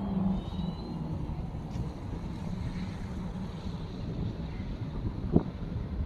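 A low engine hum with wind buffeting the microphone, and one sharp knock about five seconds in.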